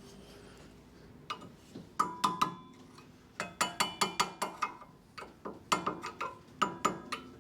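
Sharp metallic taps on a steel anti-rattle shim being knocked down into a brake caliper carrier, likely with a small hammer, each with a short metallic ring. The taps come in several quick runs, with brief pauses between.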